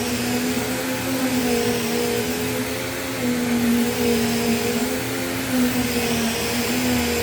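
Dust Care Evolution Prestige 6502Z upright vacuum cleaner running: a steady motor whine over rushing air, with a slight waver in pitch.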